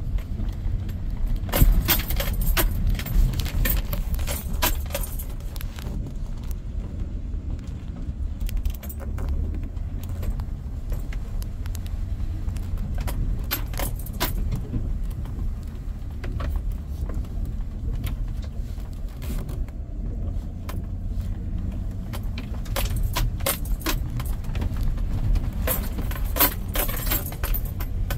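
Frequent jingling and rattling clicks over a steady low rumble, with the rattling thickest in a few stretches.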